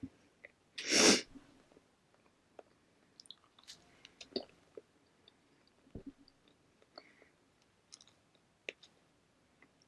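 Close-up mouth sounds of someone chewing a toasted maple French toast bagel: small clicks and smacks scattered through. About a second in there is one short, loud rush of noise.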